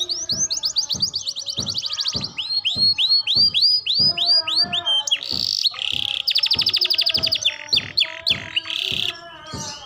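Young domestic canary practising its song: fast trills of rapidly repeated down-slurred notes, slower sweeping whistles between them, and a short harsh burst about five seconds in.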